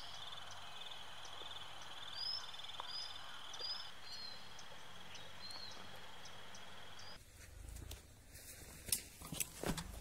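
Outdoor nature ambience: insects trilling in a steady high pulsing tone, with short bird chirps and a soft background hiss. About seven seconds in it cuts off abruptly, and a few clicks and knocks of a backpack being handled follow near the end.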